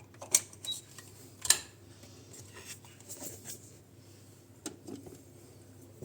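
A few sharp clicks and light knocks from handling the coffee grinder's controls and parts, the loudest about a second and a half in, with two softer clicks near the end. The grinder motor is not running.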